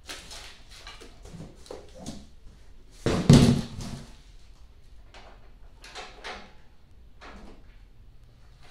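Cardboard and plastic packaging being handled and pulled apart in short rustles and scrapes, with one loud cardboard thump about three seconds in.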